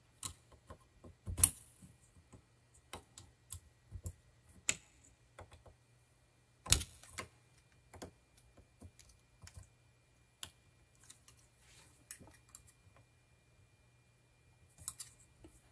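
Small screwdriver clicking and scraping against a steel wire retaining ring on a potentiometer shaft held in a vise: irregular light ticks, with two louder clicks, about a second and a half in and near seven seconds.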